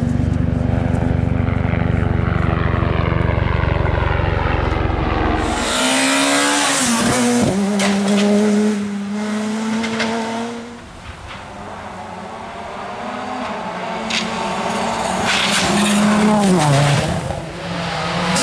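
Rally cars on a special stage: first a steady engine note with heavy low rumble, then, after an abrupt change about six seconds in, a rally car's engine running hard with quick drops in pitch as it lifts off and changes gear. The sound falls away for a few seconds, then another car comes up loudly near the end with a further drop in pitch.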